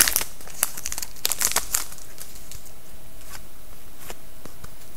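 Foil wrapper of an SPx hockey card pack crinkling as it is handled and opened, in sharp crackles for about the first two seconds, then only a few faint scattered clicks.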